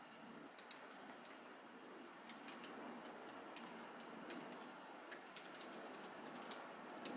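Faint, irregular clicks of typing on a laptop keyboard, starting about half a second in.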